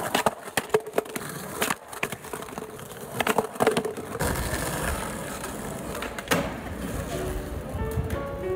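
Skateboard on pavement: several sharp clacks of the board and wheels striking the ground in the first few seconds, then the wheels rolling with a steady rumble from about four seconds in. Background music comes in near the end.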